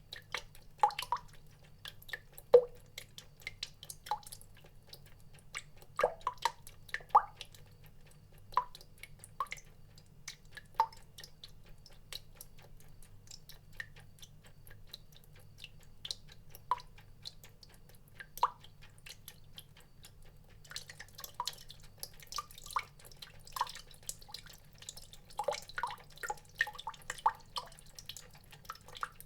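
Water drops dripping and plinking at an irregular pace, each drop a short pitched plip, sparse at first and coming thicker and faster near the end. A faint steady low hum runs underneath.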